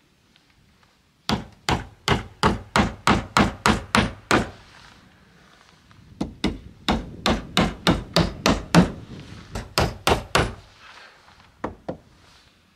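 Claw hammer driving nails into wooden wall boards. Two runs of quick strikes, about three a second, come with a pause of a couple of seconds between them, followed by two lighter taps near the end.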